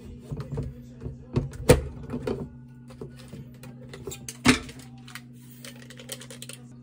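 Sharp clicks and knocks of a clear plastic storage canister's lid being handled and things set down on a stone countertop, the loudest about a second and a half in and again past four seconds. Lighter rustling follows as a paper drink-mix stick is pulled out and emptied into a glass, over a steady low hum.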